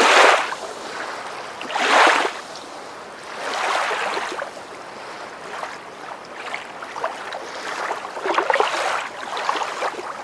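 Rushing water noise that swells and fades about every two seconds.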